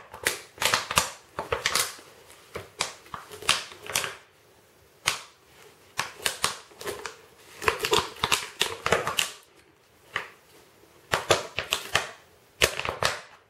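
A husky puppy and a ferret play-fighting in a fabric dog bed on a tile floor: irregular bursts of scuffling, scratching and sharp clicks from claws and bodies hitting the bed and floor, coming in clusters with short pauses.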